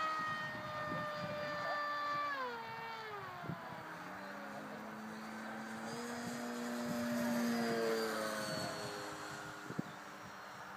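Radio-controlled plane's electric motor and propeller whining overhead. The pitch drops sharply about two seconds in, holds lower, swells about eight seconds in and then fades.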